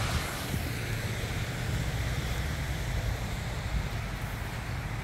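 Wind rumbling on the microphone over the rush of water cascading down a stepped concrete spillway; the water's hiss fades about half a second in, leaving mostly the low wind rumble.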